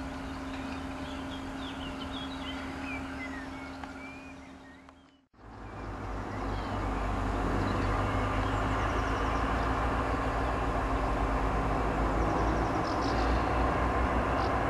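Diesel locomotive hauling a freight train, approaching at low speed: a low engine rumble that fades in about five seconds in and grows louder. Before that, a steady hum with a few high chirps fades out to a moment of silence.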